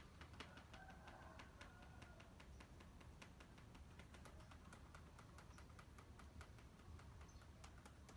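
Near silence: faint room tone with many soft, irregular clicks.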